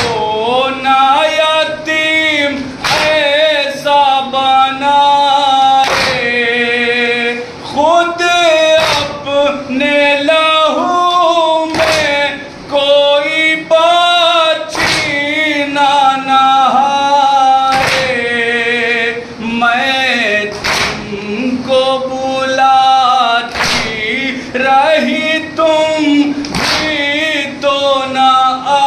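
Male voices chanting an Urdu nauha lament in a slow, wavering melody. Sharp hand strikes recur every two to three seconds, sometimes doubled: matam, the mourners beating their chests in time with the chant.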